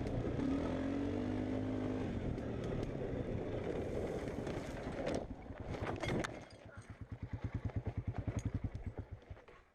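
ATV engine running steadily, then dropping to an even, rapid putter of about ten beats a second that fades out near the end, with a couple of sharp knocks around the middle.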